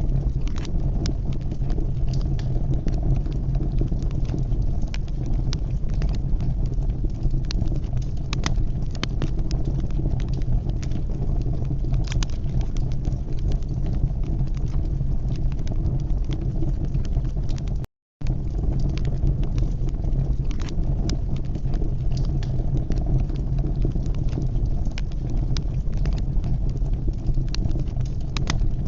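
Wood fire burning in a fireplace: a steady low rumble of flames with frequent sharp crackles and pops. The sound cuts out completely for a split second about eighteen seconds in.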